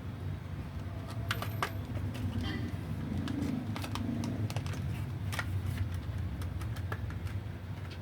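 Scattered small clicks and plastic taps of RAM sticks being handled and pressed into a motherboard's memory slots, over a low steady hum.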